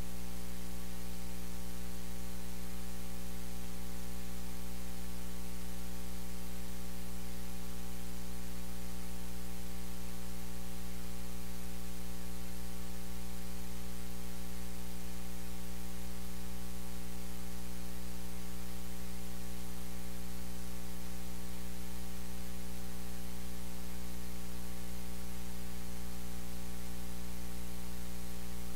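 Steady electrical mains hum with a layer of hiss, a low buzz with many evenly spaced higher overtones; nothing else comes through.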